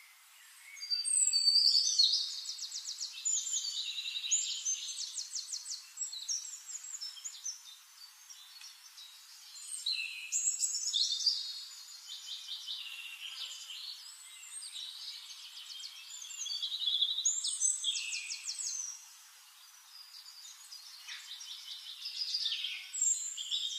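Birdsong: phrases of fast trills and chirps that come loudest about a second in, again around ten and seventeen seconds, and near the end, with quieter chirping between.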